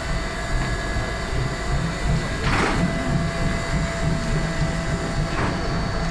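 Steam locomotive 03 1010 standing under steam: a steady low rumble with a thin high whine, and two short hisses, the first about two and a half seconds in and a shorter one about five and a half seconds in.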